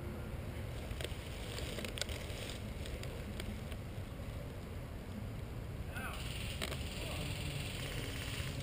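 Low rumble of wind on the microphone, broken by a few sharp snaps of airsoft guns firing, single shots spaced a second or so apart, with faint voices in the distance.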